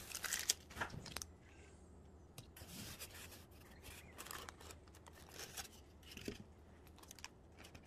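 Plastic bag and wrapping crinkling and rustling in short, scattered bursts as a takeout dessert container is unwrapped and its covering peeled back.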